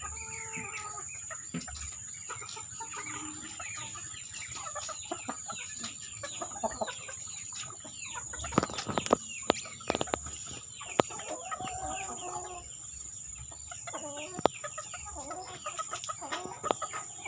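Chickens clucking and calling, with a cluster of sharp clicks or knocks near the middle, while a young chicken sick with ngorok (a respiratory infection with rattling breath) is held to have the phlegm cleared from its throat.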